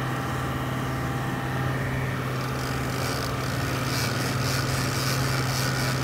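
Fishing boat's engine running steadily under way, a constant low hum, with a hiss that comes and goes from about halfway through.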